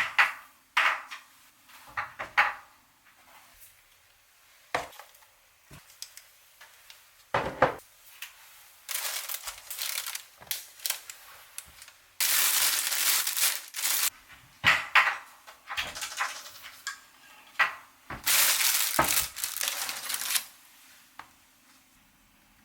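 Kitchen dishes and utensils knocking and clinking, with several stretches of steady hissing noise lasting a second or two.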